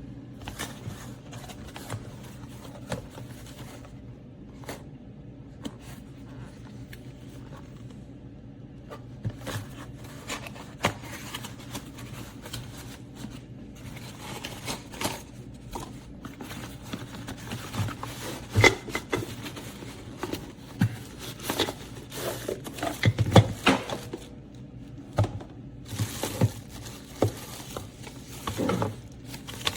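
Handling noises: scattered clicks, knocks and scrapes of things being moved and set down, growing busier in the second half with the loudest knocks near the end, over a steady low hum.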